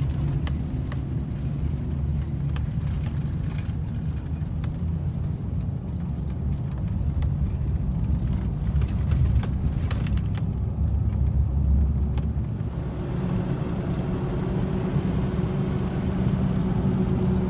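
Car driving, heard from inside the cabin: a steady low rumble of road and engine noise with scattered light ticks, settling into a steadier hum with a faint drone about two-thirds of the way through.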